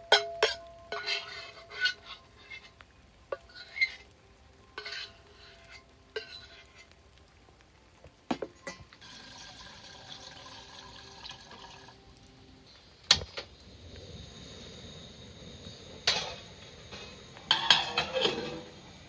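Dishes and cutlery clinking and knocking, a run of sharp clinks, some ringing briefly. They come thick at the start, then single knocks at intervals, then another cluster near the end.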